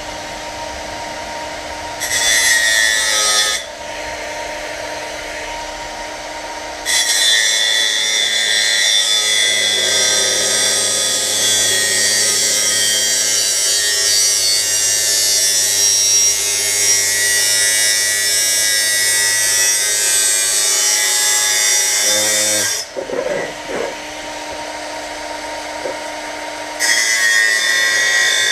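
Cordless angle grinder with a cutting disc cutting the top off a metal headlight reflector. The motor whines steadily while the disc runs free. It bites into the metal briefly about two seconds in, cuts steadily from about seven seconds to about twenty-two, stops briefly, and cuts again near the end.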